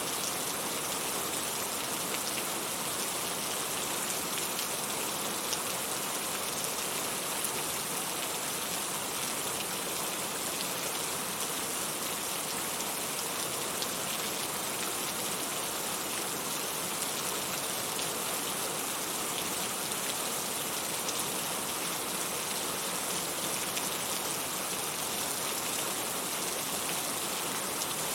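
Heavy rain falling steadily in a dense, even hiss, with scattered individual drop ticks.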